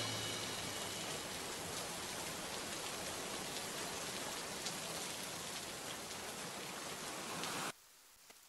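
Steady rain falling, an even hiss of drops, which cuts off suddenly about three-quarters of a second before the end, leaving near silence.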